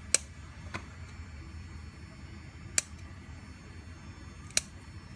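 Three sharp snips of scissors cutting tomato stems, spaced a couple of seconds apart, with a fainter click shortly after the first.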